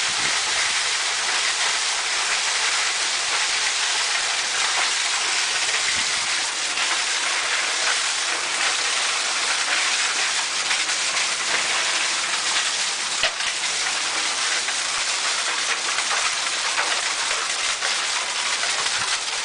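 Hail coming down hard with rain: a dense, steady patter full of sharp ticks from hailstones striking surfaces.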